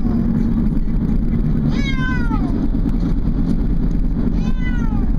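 A domestic cat meowing in distress inside a car, long whining calls that slide down in pitch: the tail of one at the start, then two more about three seconds apart, over the steady low rumble of the car.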